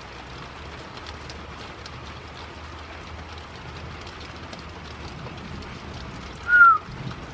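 Steady rain falling, with faint scattered drips and a low steady hum underneath. About six and a half seconds in, one short, loud, high whistle-like note that falls slightly in pitch.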